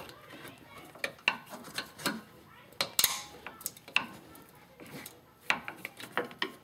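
Screwdriver clicking and scraping against the metal crimp clamp on a steering rack bellows boot as the crimped section is twisted loose: irregular sharp metallic clicks, the loudest about three seconds in.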